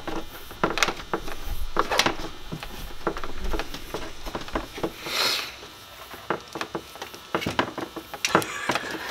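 Leftover length of insulated wire being coiled up by hand: irregular light clicks and rustles of the wire against itself and the hand, with a brief swishing rub about five seconds in.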